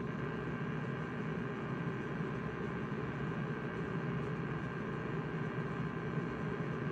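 Ham radio receiver audio on the HF bands: a steady, unbroken noise with a faint buzz in it, covering the band in place of signals. The owner takes it for power-line noise, present whenever the weather is dry.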